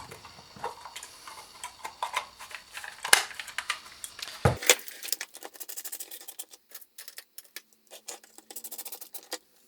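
Irregular clicks, taps and light clatter of small hard objects being handled at a workbench, with a few louder knocks about 3 and 4.5 seconds in, then lighter, quicker ticking.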